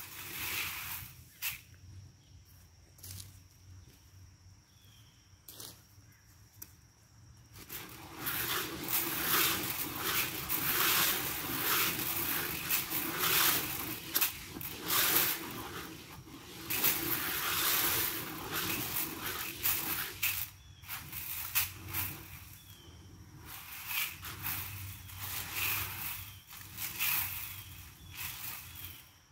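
Deer feed (corn and sunflower seeds) poured from a bag into the all-metal hopper of a Game Winner Short Stack deer feeder: a dense rattling hiss of grain running into the drum. It starts about eight seconds in and lasts about twelve seconds, followed by shorter pours. Before it there are only a few clicks and knocks.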